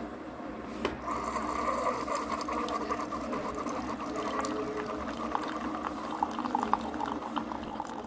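Single-serve pod coffee brewer running its pump with a steady buzzing hum while brewing, with a click about a second in. Coffee streams into a ceramic mug with a light trickle and crackle.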